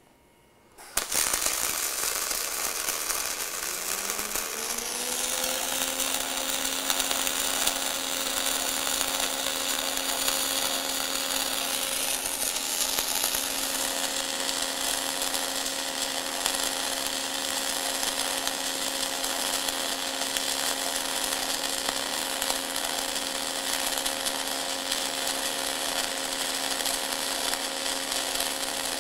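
Welding arc struck about a second in, then burning with a steady hiss and crackle as the mechanized torch weaves across the plate, laying a cap pass. Underneath, a low hum rises in pitch a few seconds in and then holds steady.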